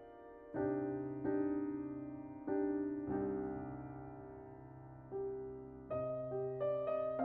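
Slow, soft piano music: sustained chords struck every second or so, each fading away, with notes coming quicker near the end.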